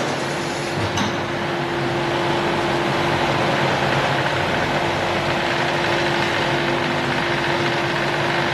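Rotor aluminium die casting machine running: a steady mechanical hum and noise with one constant tone, and a sharp click about a second in.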